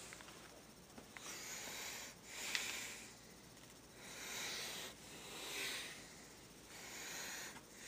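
A person breathing close to the microphone: soft, hissing breaths in and out, each about a second long, one after another.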